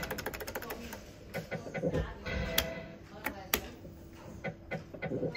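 Retro fruit machine in play: a rapid run of electronic ticks, about twelve a second, for the first second, then short beeps and sharp clunks as its buttons are pressed and the reels spin and stop.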